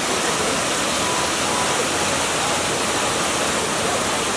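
Waterfall pouring steadily: a dense, even wash of falling water.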